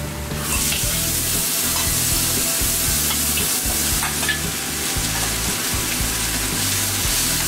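Flat rice noodles and bean sprouts go into a hot oiled wok and start frying with a sudden loud sizzle about half a second in. The sizzle holds steady as they are stirred with a ladle.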